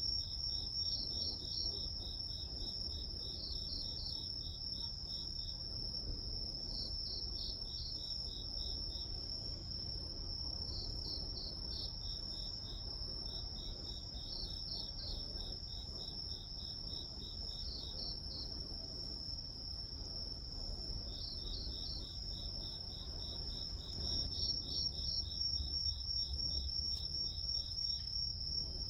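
Crickets and other grass insects calling together: one insect holds a continuous high trill, while others chirp in quick pulsed runs that start and stop every few seconds, over a faint low rumble.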